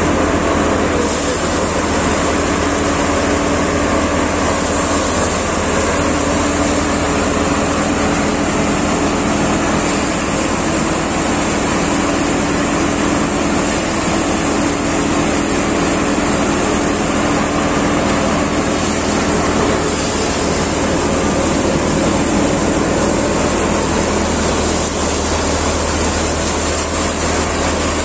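Prachi axial-flow paddy thresher, driven by a tractor, running steadily while threshing paddy: a constant loud drone of the spinning drum and tractor engine mixed with the rush of straw and grain passing through the machine.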